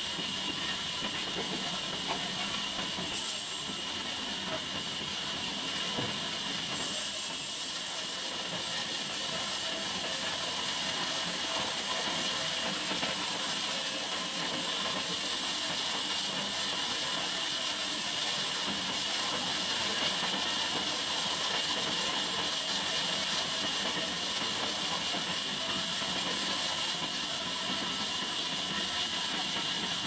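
Horizontal band sawmill running as a log on its carriage is fed into the blade: a steady, bright hiss over a lower machine hum.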